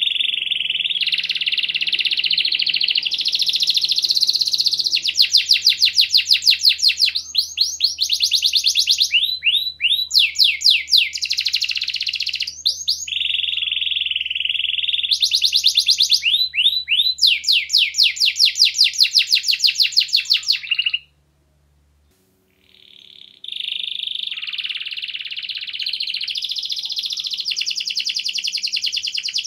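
Domestic canary singing a long, loud song: fast trills of repeated rising notes alternating with buzzy rolled passages. The song breaks off briefly about two-thirds of the way in, then resumes.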